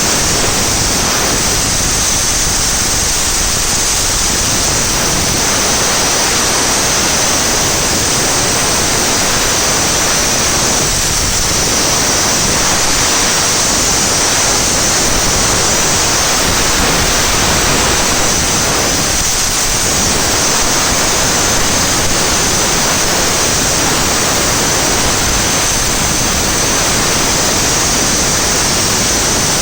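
Hypertherm MaxPro 200 plasma torch cutting steel on a CNC table: a loud, steady hiss of the plasma arc with a high-pitched whistle over it.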